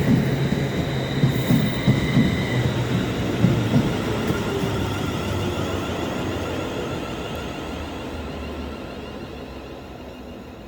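Class 350 Desiro electric multiple unit running into the platform. Its wheels clack over rail joints for the first few seconds, and a high whine dies away at about two and a half seconds. The whole sound then fades steadily as the train slows and draws away along the platform.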